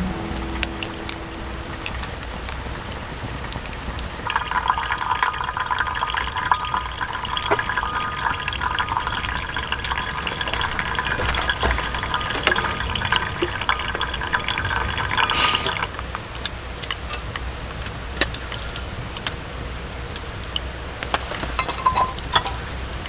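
Liquid pouring steadily into a container for about eleven seconds, starting about four seconds in and stopping suddenly, with scattered sharp clicks throughout.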